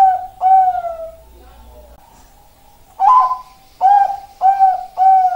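Zebra dove (Bangkok-line perkutut) cooing in clear, low, pitched notes. One phrase ends with a drawn-out falling coo about a second in. After a pause, a new phrase of four coos begins about three seconds in, its last note trailing away.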